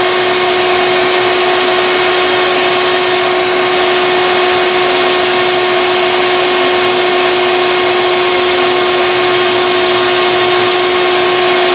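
Dremel rotary tool running at a steady speed with a sandpaper drum, a constant high whine, sanding down a glued-in wooden plug on a guitar headstock; a scratchy hiss comes and goes as the drum bites the wood.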